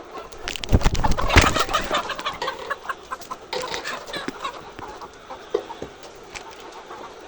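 Chickens clucking and squawking, with a loud flurry of knocks and scuffles between about half a second and two seconds in, then scattered clucks that thin out.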